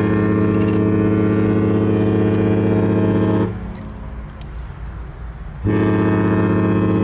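Cruise ship's horn sounding long, steady blasts: one blast stops sharply about three and a half seconds in and, after a pause of about two seconds, another begins.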